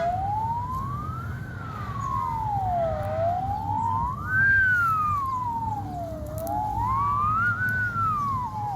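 A wailing siren, its pitch rising and falling smoothly in a slow cycle of about three seconds, over a steady low rumble.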